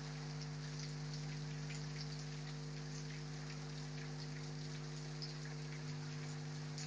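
Heavy rain falling: a steady hiss with many single drops ticking on surfaces. A steady low hum runs underneath.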